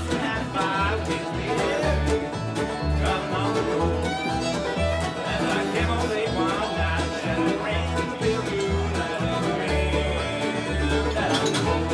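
Instrumental bluegrass played by a string band. An upright bass plucks steady notes about two a second under banjo, guitar and fiddle.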